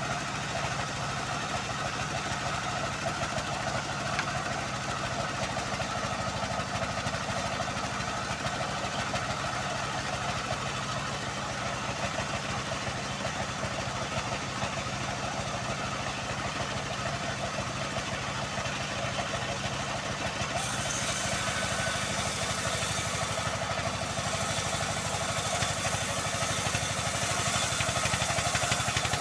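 Homemade band sawmill running steadily with its engine droning, sawing a long teak log. A brighter hiss joins about two-thirds of the way through.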